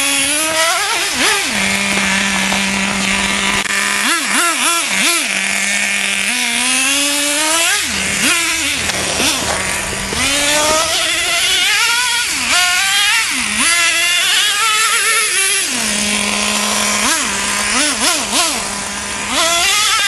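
Traxxas T-Maxx 2.5 nitro RC truck's small two-stroke glow engine revving in repeated throttle blips. The pitch rises and falls sharply several times and settles back to a steady idle in between.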